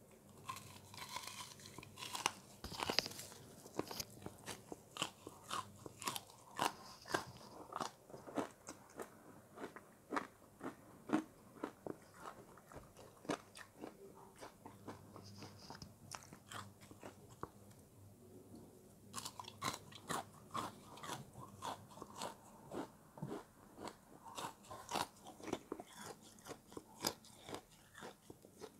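A person biting and chewing crunchy, snow-like frozen ice close to the microphone: a long run of sharp, irregular crunches. They thin out briefly past the middle, then come thick again.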